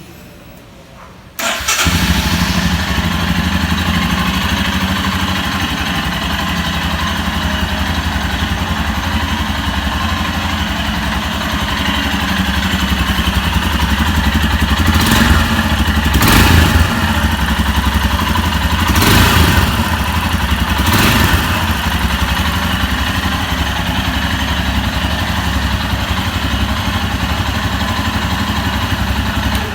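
Royal Enfield Scram 411's single-cylinder engine, on its stock exhaust, starting on the electric starter about a second and a half in, then idling steadily. Several short blips of the throttle come between about 15 and 21 seconds.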